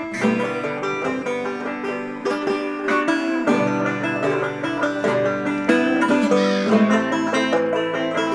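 Background instrumental music, a quick run of plucked-string notes.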